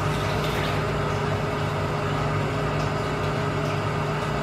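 Steady mechanical hum with a faint constant tone in it, from machinery running in the treatment room.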